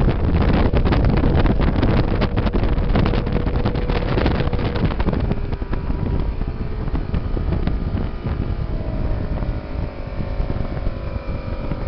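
Mercury 150 outboard motor running a speedboat at speed, with heavy wind buffeting on the microphone and water rushing past the hull. The buffeting eases after about five seconds, and the engine's pitch drops slightly near the end.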